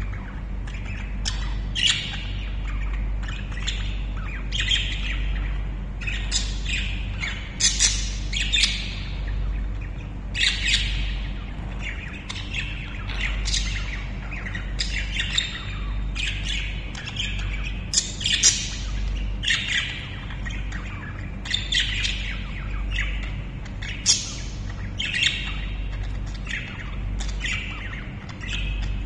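Pet budgerigars chattering, with many short, scratchy squawks and chirps repeating throughout.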